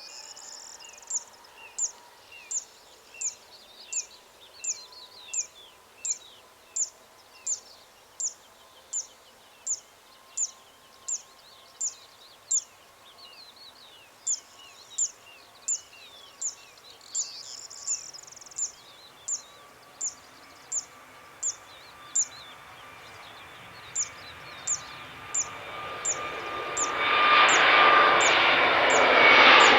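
A small bird repeats a short, sharp high chirp about one and a half times a second, with a brief pause partway through. Toward the end the jet engines of an Airbus A321neo build up with a steady whine and become loud, drowning out most else in the last few seconds.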